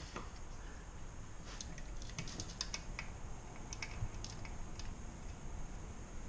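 A scatter of faint light clicks and taps, small hard parts being handled, over a low steady hum.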